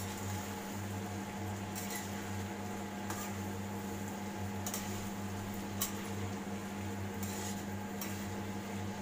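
A metal spatula stirs cluster beans and potatoes in a metal kadhai, clinking against the pan about six times, with a steady low hum underneath.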